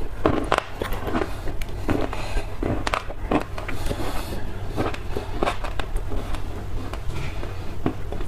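Close-up chewing and crunching of dry black clay: a rapid, irregular run of sharp crunches over a steady low hum.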